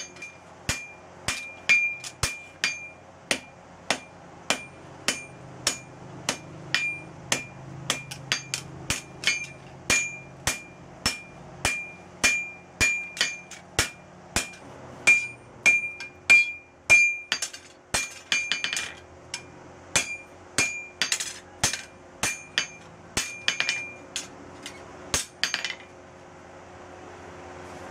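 Hand hammer striking red-hot leaf-spring steel on an anvil, forging it out, with a ringing note on each blow at about two blows a second. The hammering stops near the end and a steady rushing noise rises.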